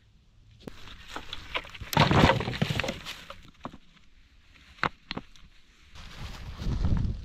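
Dry branches and brush being handled and dragged: rustling and scraping, loudest about two seconds in, with two sharp knocks near the middle and more rustling of dry leaves and twigs near the end.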